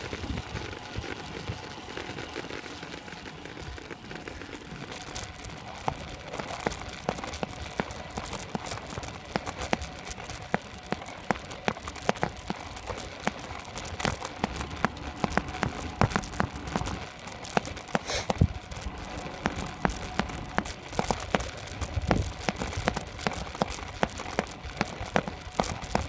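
Road bicycle riding on rough asphalt, heard from a handlebar-mounted camera: a steady hiss of tyre and road noise with frequent irregular clicks and rattles, which get denser from about five seconds in.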